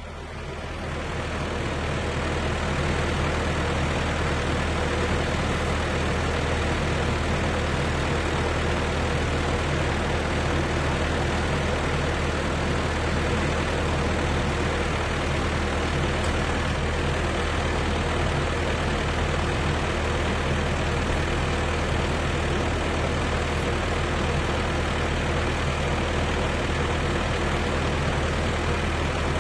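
Tractor engine running steadily with a low, even hum, growing louder over the first two seconds and then holding level.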